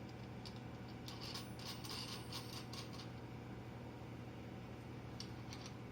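Light metal clinks and taps from a part and tools being handled on a keyseater's table: a cluster about a second in, a few more near the end, over a steady low hum.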